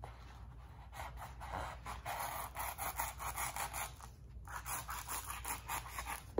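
A knife blade scraping and slicing along a fresh banana leaf's midrib, the leaf crackling and tearing as it is cut away from the stem, in two runs with a short break about four seconds in.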